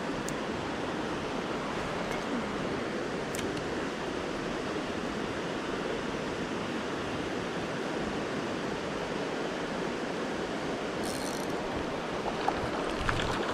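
Steady rush of flowing creek water, with a few faint clicks from a spinning reel being handled and wound.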